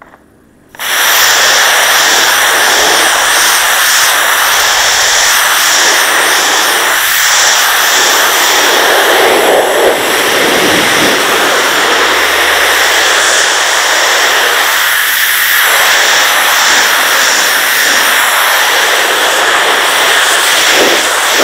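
Pressure washer spraying a high-pressure water jet onto porcelain patio slabs: the jet starts suddenly just under a second in and runs as a loud, steady hiss.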